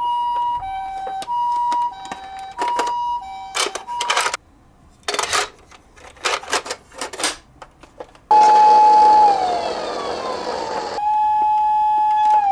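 Toy ambulance's electronic siren from its small speaker: a hi-lo two-tone siren alternating about twice a second, then plastic clicks and rattles as the toy's rear door is handled. About eight seconds in comes the loudest part, a burst of hiss with a steady siren tone that slides down, and near the end the steady siren tone returns and begins to fall.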